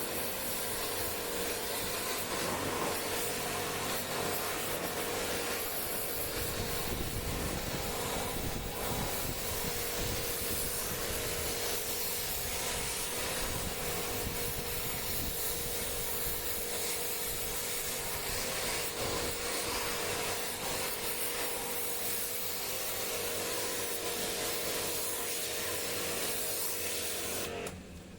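A motor-driven tool running steadily, with a constant hum under a loud hissing, scrubbing noise, cutting off abruptly just before the end.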